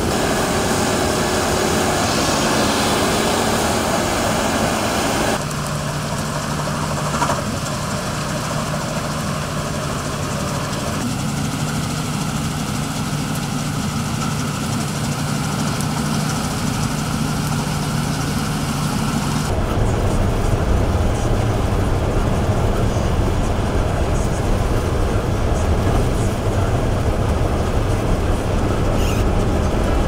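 Claas combine harvester running. For the first five seconds grain streams from the unloading auger, with a hiss over the machine noise. The picture then cuts to a steady engine hum, and at about twenty seconds to a heavier low rumble.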